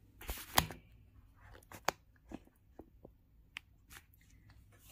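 Electronics and ribbon cables being handled on a desk: scattered soft clicks and rustles, the loudest about half a second in.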